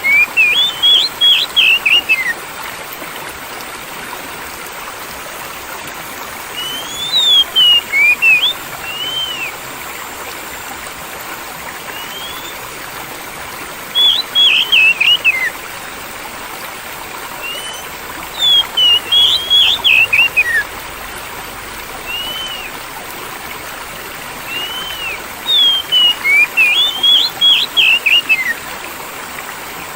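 Oriental magpie-robin (kacer) singing in short bursts of rapid, sweeping whistled notes, five phrases about six seconds apart, over the steady rush of flowing water.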